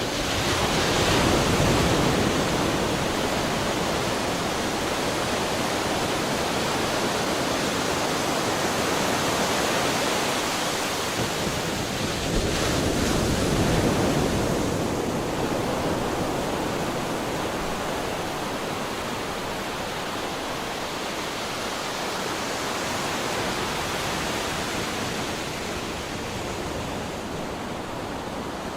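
Sea waves breaking and washing on the shore, a continuous rushing surf that swells about a second in and again around halfway through, then eases a little.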